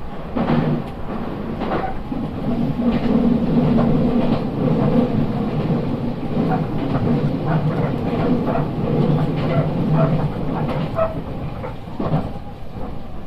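Nankai Railway Airport Express electric train running at speed, heard from on board: a steady running rumble and motor hum, with irregular clicks from the wheels over the track.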